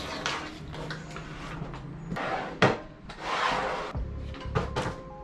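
Household objects being handled and set down on a wooden table: scattered knocks and clunks, one sharp clack about two and a half seconds in, and a short scraping slide soon after. Faint background music with held notes comes in near the end.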